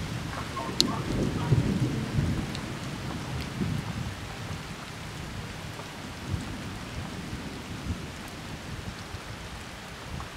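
Rain falling steadily, with a low rumble of thunder that swells about a second or two in and then slowly dies away.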